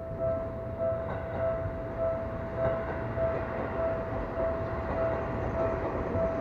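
Japanese level-crossing electronic warning bell ringing in a steady ding-ding rhythm, a little under two strikes a second, while a Seibu Ikebukuro Line train rumbles past over the rails, the train noise building about a second in.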